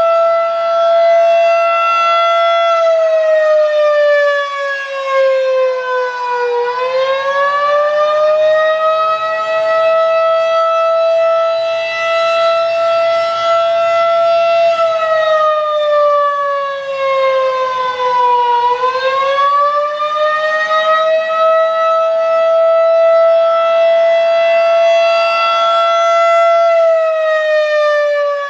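Federal Signal 2001-DC outdoor warning siren sounding a loud, rich steady tone that twice sags in pitch and climbs back, with a third drop starting near the end.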